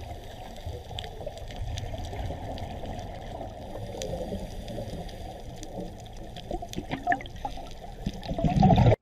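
Underwater sound on a coral reef: a low, steady watery rush with scattered faint clicks, swelling louder in the last half-second before it cuts off suddenly.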